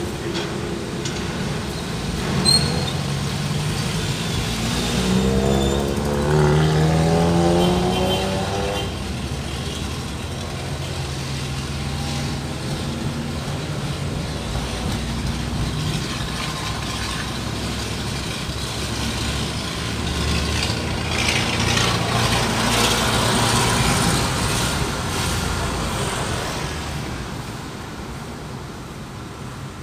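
Car driving through city traffic: a steady road and engine rumble, with an engine note rising in pitch as it speeds up about five seconds in, and a louder rush of passing traffic around twenty-one to twenty-six seconds in.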